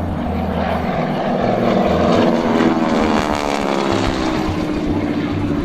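North American Harvard's Pratt & Whitney R-1340 radial engine and propeller passing low overhead, growing louder to a peak partway through, then dropping in pitch as the aircraft goes by.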